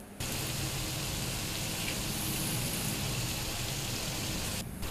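Chicken pieces frying in hot oil in a pot: a steady sizzle. The sound breaks off briefly right at the start and again near the end.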